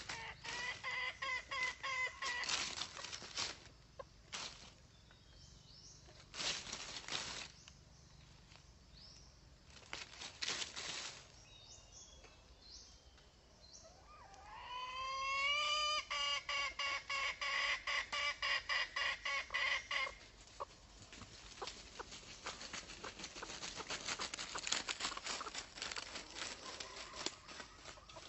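Red junglefowl calling: clucking notes, then about halfway through a rising call that breaks into a fast run of cackling, with more quick notes near the end. Short bursts of noise come in between the calls.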